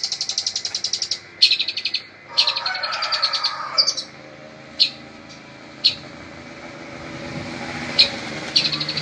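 A songbird singing fast, high trills in three bursts in the first four seconds, then single sharp chips every second or two, and a trill starting again near the end.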